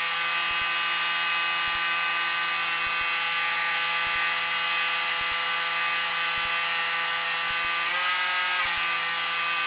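Bixler's electric motor and propeller running steadily at a fixed 25% throttle, with an even, high whine. The pitch shifts slightly for a moment near the end.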